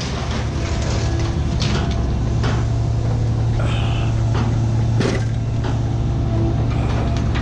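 An engine running steadily with a low hum, with a few sharp clanks over it, the loudest about five seconds in.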